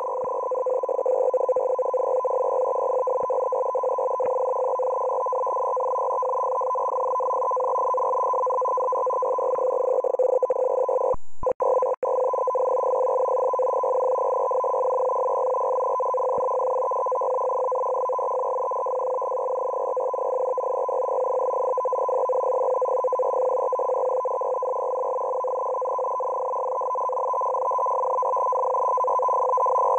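Russian digital shortwave transmission logged as M42b, heard through a shortwave receiver: a steady, unbroken warble of a lower and a higher tone with a buzzing band between them. It cuts out briefly about eleven seconds in.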